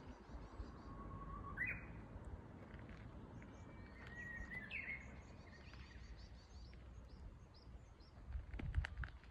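Japanese bush warbler singing: a long, steady whistled note that breaks into a quick higher flourish about a second and a half in, and another phrase a few seconds later. Faint high chirps of other small birds run underneath over a low rumble, and a few sharp clicks come near the end.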